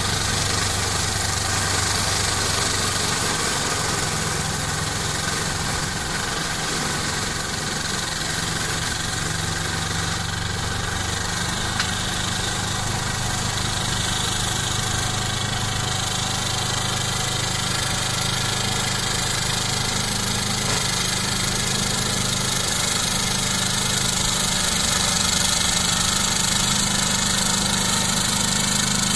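The 40 hp Lombardini diesel engine of a Ferrari 95RS compact tractor running steadily, with small shifts in engine speed. It grows a little louder near the end as the tractor comes closer.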